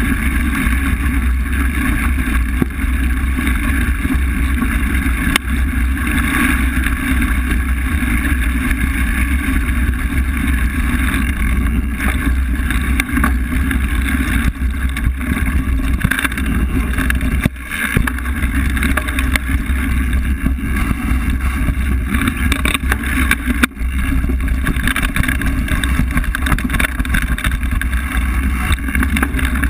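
Wind roaring over an action camera's microphone on a mountain bike riding fast down a gravel and dirt trail, with tyre noise and rattling knocks from bumps in the trail.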